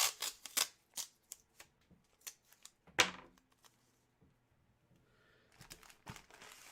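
Handling noise from items being moved about: a quick run of sharp clicks and taps, a louder knock about three seconds in, then soft rustling near the end.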